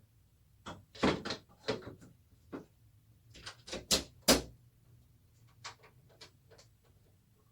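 A PC case panel is being dropped into place and seated: a string of hard knocks and clicks. The two loudest come about four seconds in, then a few faint ones follow.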